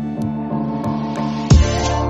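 Electronic intro music with held synth chords; a loud drum beat with deep bass comes in about a second and a half in.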